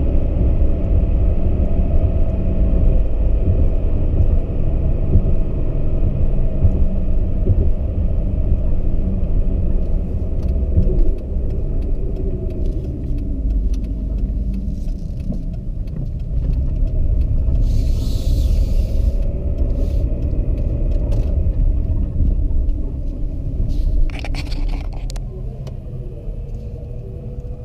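Low rumble of a 2010 Dodge Charger SXT's V6 engine and its road noise, heard from inside the cabin as the car slows down, easing off toward the end. A brief hiss comes a little over halfway through.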